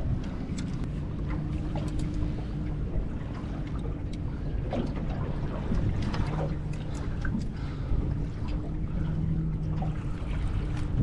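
Wind on the microphone and water around a small fishing boat, with a steady low hum underneath. Scattered knocks and clicks from handling on the deck as a freshly landed jewfish is unhooked with pliers.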